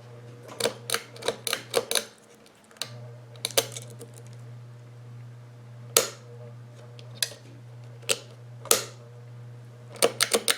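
Ceiling fan motor humming steadily on AC, a sign that its capacitor and reverse winding have failed so the motor no longer drives itself properly. Irregular sharp clicks and knocks sound over the hum, and the hum drops out briefly about two seconds in.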